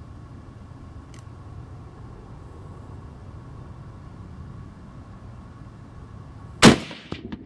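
A single shot from a Barrett .50-calibre (.50 BMG) rifle, sudden and very loud about two-thirds of the way in, trailing off in a short echo. Before it there is only a steady low rumble.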